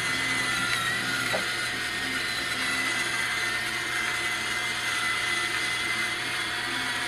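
Electric pepper grinder running steadily with a continuous motor whirr as it grinds pepper.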